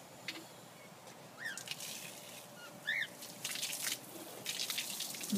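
A cockatiel gives two short rising chirps, about a second and a half apart, while tap water starts running in hissing spurts that grow louder toward the end.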